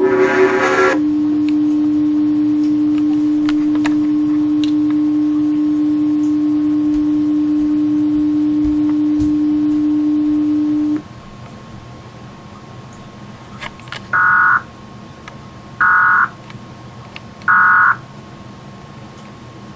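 Emergency Alert System broadcast audio: a short chord of tones, then a single steady low tone that cuts off abruptly about eleven seconds in. After a few seconds of hiss come three short bursts of digital data tones about a second and a half apart, the pattern of an EAS end-of-message signal.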